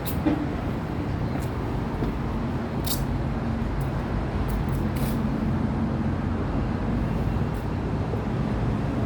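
Steady city traffic rumble, with a couple of brief faint clicks.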